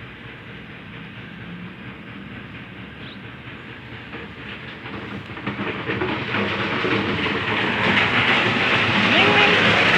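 Rushing noise of an approaching vehicle, steady at first and then growing steadily louder from about halfway through.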